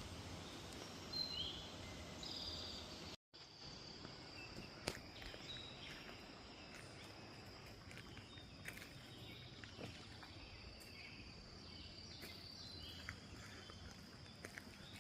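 Faint outdoor ambience: a few short bird chirps in the first seconds, then, after a brief dropout, a steady high-pitched insect drone with scattered small clicks.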